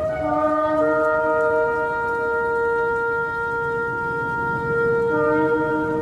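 Shofar blasts: several long, steady notes sounding together at different pitches, with some notes dropping out and others coming in about a second in and again near the end.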